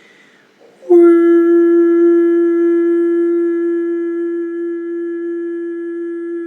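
A single long, steady musical tone with a rich set of overtones, starting suddenly about a second in and slowly fading as it is held.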